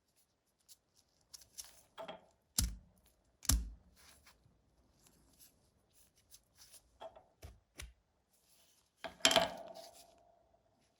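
Small metal parts of an aluminium petrol lighter and hand tools being handled on a workbench: scattered clicks and taps, two sharper knocks a few seconds in, and a brief metallic ring near the end.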